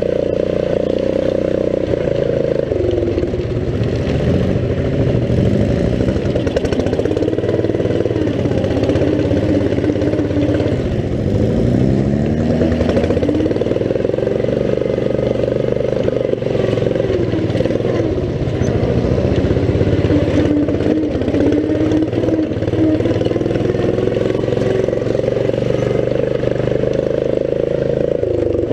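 Riding lawn mower engine running hard and continuously, its pitch swinging up and down again and again as the throttle and load change on a rough dirt trail.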